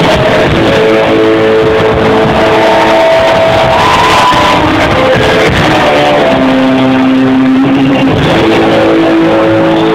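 Rock band playing live, heard loud and with poor sound quality from within the crowd, with long held notes that shift in pitch every second or so.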